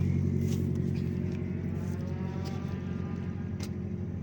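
A car engine idling steadily, with a faint rising engine note in the background as another car revs up.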